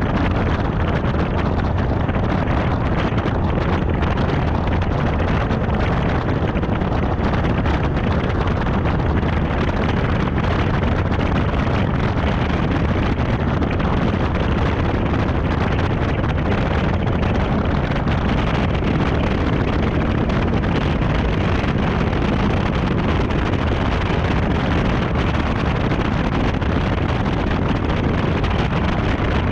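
Steady rumbling wind noise on the microphone of a camera mounted outside a Chevrolet Camaro beside its front wheel, with the car's running noise under it as it rolls away from a stop onto the track.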